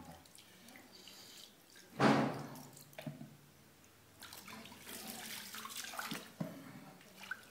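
Water poured from a plastic jug into a stone mortar of ground bhang paste, splashing loudest about two seconds in and then trickling more faintly: water being added to the ground paste to make shardai.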